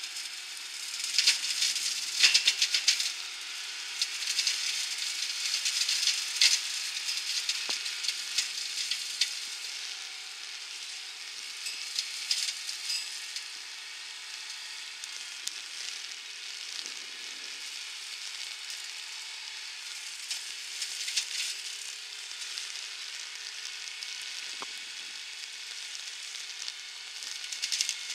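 McConnel flail hedge cutter on a New Holland TS115 tractor chopping through a hedge: a steady hiss full of crackling as the flails shred twigs and branches, with a faint steady hum underneath. The crackling comes in louder bursts that come and go, strongest in the first few seconds.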